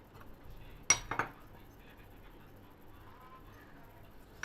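A dish or utensil clinks against a plate: one sharp ringing clink about a second in, followed quickly by two softer knocks, and a faint tick near the end.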